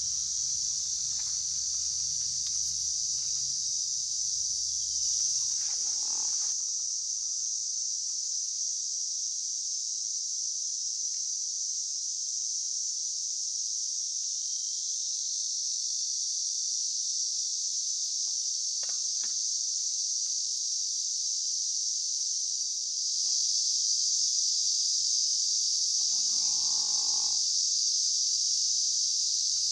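Steady, high-pitched chorus of insects buzzing without a break, growing a little louder about 23 seconds in.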